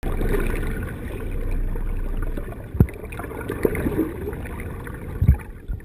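Muffled underwater sound from a camera held just below the sea surface: a low, steady water rush with two dull thumps, one about three seconds in and one near the end.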